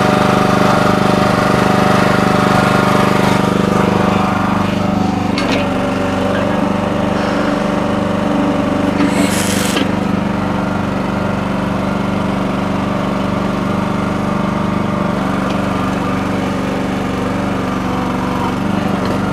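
Small gas engine of a Red Rock mini backhoe running steadily while it digs. Its tone shifts about four seconds in, and a brief hiss comes a little past halfway.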